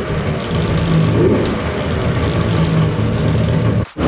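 Polaris XCR 600 two-stroke triple snowmobile engine running with smoky exhaust, the revs rising and falling a few times under light throttle blips, running again after its clogged carburetor jets were cleared. The sound drops out abruptly for a moment near the end at a cut, then the engine carries on.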